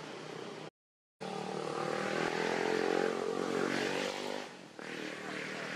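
A motor engine running steadily, growing louder toward the middle and then easing, after a brief dropout to silence about a second in.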